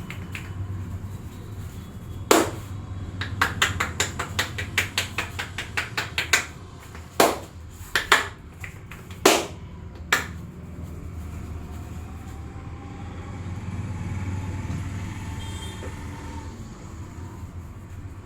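Sharp hand slaps and taps of a percussive Indian head massage: one loud strike, then a quick run of taps at about five a second, then four louder single slaps, over a steady low rumble.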